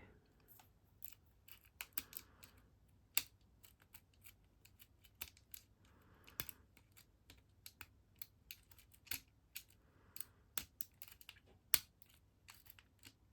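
Lock pick and tension tool clicking and ticking in the keyway of a cheap Yuqi lock as its pins are worked, in irregular, faint clicks. The lock has not opened yet.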